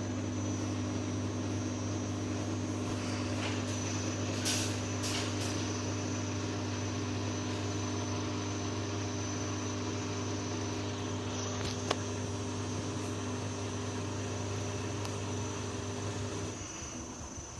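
Washing machine running with a steady motor hum and a few light clicks, one sharp click about twelve seconds in; the hum drops away near the end.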